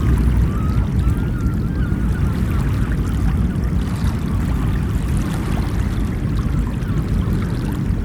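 Ocean surf washing steadily, a dense low rush of water with no distinct breaks. A few faint warbling chirps sit over it in the first couple of seconds.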